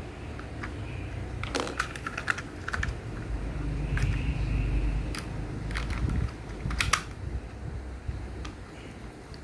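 Small plastic building pieces clicking and tapping as they are handled and pressed together, in quick clusters of clicks over a low steady hum.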